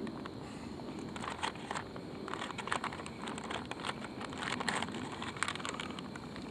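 MRE pudding pouch being handled and eaten from: a quick, irregular run of plastic crinkling and scraping clicks lasting a few seconds.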